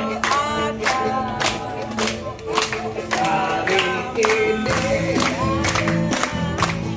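A group of people singing a birthday song together, clapping along in time at about three claps a second.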